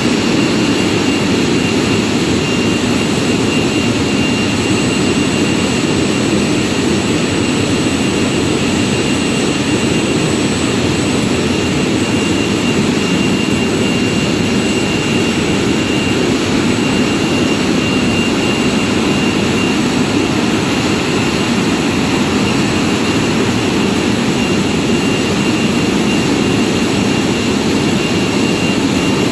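Scalding and plucking machines of a chicken slaughter line running: a steady, loud mechanical drone with a thin, constant high whine over it.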